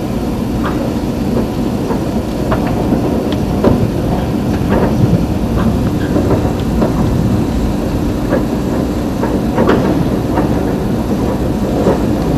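Passenger train running, heard from inside the carriage: a steady low rumble of wheels on rails with irregular clicks and rattles.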